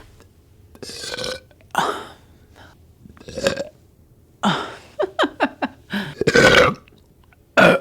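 A woman burping again and again from carbonated 7-Up, with short and long burps. A quick run of small ones comes about five seconds in, and the longest, loudest burp follows just after six seconds.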